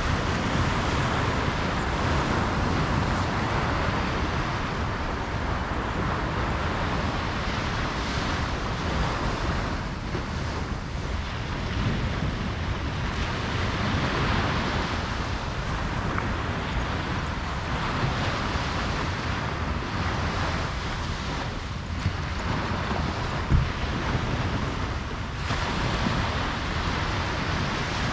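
Ocean surf breaking and washing on a beach, swelling and easing every few seconds, with wind rumbling on the microphone. A single short thump comes about two-thirds of the way in.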